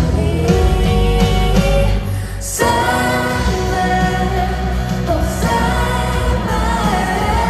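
K-pop song with women singing over a full pop backing. The music thins out briefly about two seconds in, then the full band comes back in with a hit.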